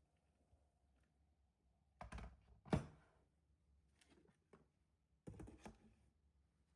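Quiet handling sounds: a few scattered knocks and clicks of small objects being moved or set down, the loudest about three seconds in.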